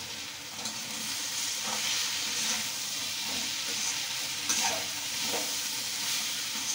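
Snake gourd and potato pieces sizzling in hot oil in a kadai, with a steady hiss. In the second half a metal ladle scrapes and stirs them against the pan a few times.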